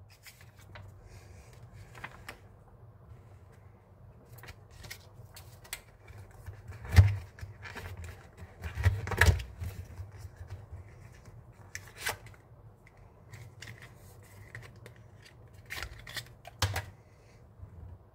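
Handling noises from unboxing a power bank: scattered clicks, taps and light knocks of the cardboard box, its insert and the packed items as they are lifted out, the loudest about seven and nine seconds in.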